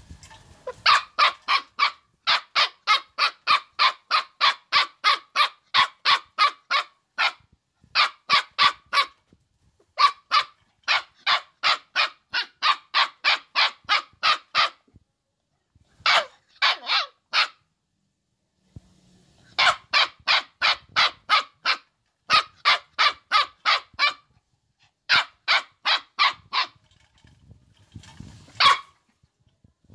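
Dog barking rapidly, about four barks a second, in long runs broken by short pauses.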